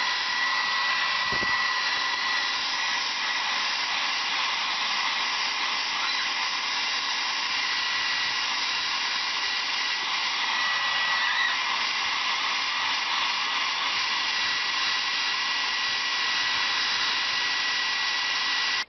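Hand-held hair dryer running steadily at close range: an even rush of air with a thin high whine.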